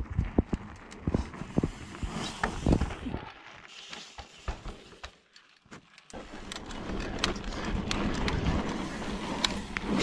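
Mountain bike riding over sandstone rock: irregular knocks and clicks of tyres and frame for the first half, then from about six seconds in a steady rush of tyre and wind noise with scattered rattles.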